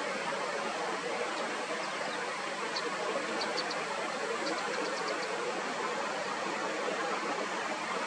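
Steady rushing outdoor background noise, with faint short high chirps in small groups through the first five seconds or so.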